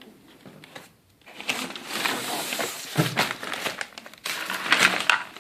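Plastic packaging crinkling and rustling as it is handled, starting about a second and a half in, with many small crackles.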